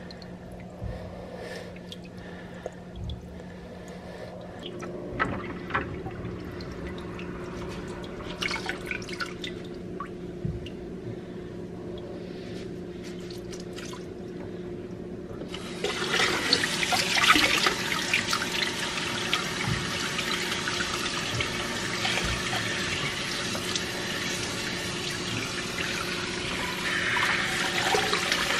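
Water dripping and splashing from soaked dreadlocks into a kitchen sink, then about halfway through a kitchen faucet is turned on and runs steadily, rinsing water through the locs into the sink.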